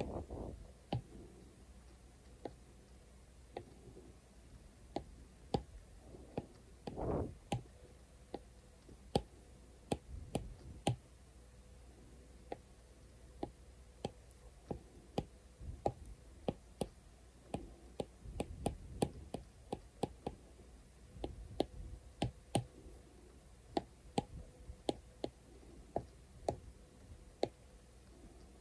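Apple Pencil tip tapping and stroking on an iPad's glass screen: irregular sharp clicks, about two a second, with a few soft rubbing sounds of brush strokes.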